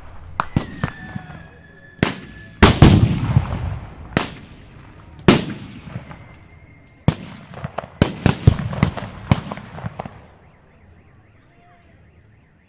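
Blank gunfire in a staged battle: irregular single rifle shots and quick clusters of shots, each with a rolling echo, and one heavier boom with a long rumble about three seconds in. The firing thins out and stops near the end.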